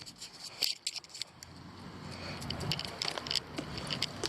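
Irregular small clicks and scrapes close by, with a low engine rumble of heavy construction trucks building from about a second and a half in.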